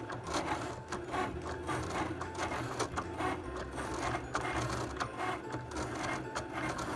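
Cricut Explore Air 2 electronic cutting machine cutting cardstock: its motors run in short whines that start and stop as the blade carriage moves and the mat is fed back and forth, with many small clicks over a low hum.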